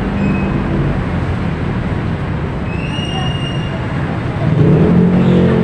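Steady rumble of busy city-street traffic, with a short high squeal a few seconds in and a deeper vehicle drone that swells louder near the end.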